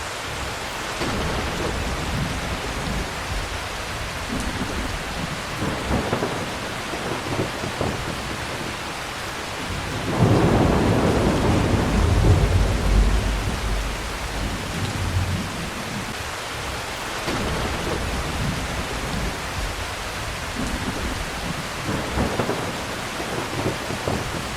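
Steady heavy rain with thunder: a loud, long rumble of thunder rolls in about ten seconds in and dies away over about five seconds, with fainter rumbles before and after.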